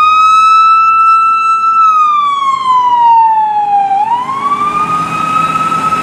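Police car siren sounding a slow electronic wail: the pitch rises and holds, falls over about two seconds, then rises again and holds.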